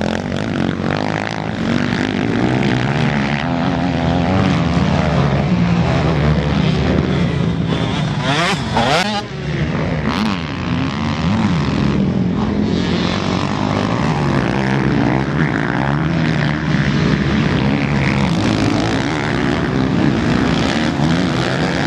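Several motocross bike engines revving up and down around a dirt track, the pitch rising and falling as riders throttle through the turns. About eight seconds in, one bike revs hard in a steep rising sweep.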